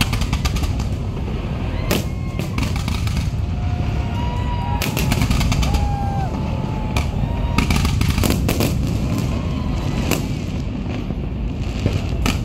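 Fireworks display: an irregular volley of sharp bangs and crackles over a steady low rumble.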